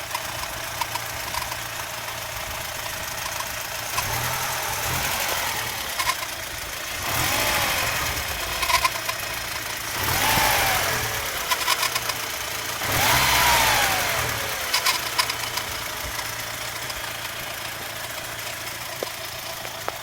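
Audi 80 B4's 2.0-litre ABK four-cylinder engine running with an unexplained squeak: short chirps repeat through the idle. Three times the engine noise swells and a squeal slides down in pitch as it settles.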